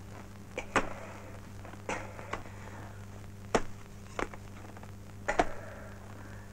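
Axe chopping: a series of sharp blows, roughly one a second, over a steady low hum.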